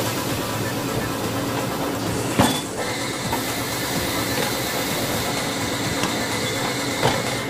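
Steady hiss of compressed air from a workshop air line at the tyre, with a sharp knock about two and a half seconds in and a lighter one near the end.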